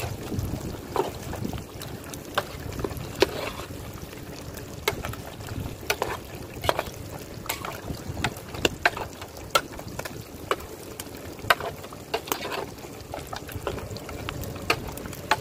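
Metal spoon clinking and scraping against a large aluminium cooking pot as cuttlefish pieces are stirred, in irregular sharp clicks, over steady wind noise on the microphone.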